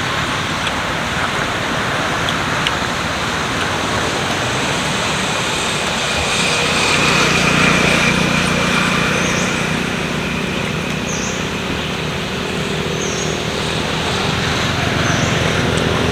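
Road traffic running by, with a motor vehicle's engine swelling louder about halfway through and again near the end. A short high chirp repeats about every two seconds in the second half.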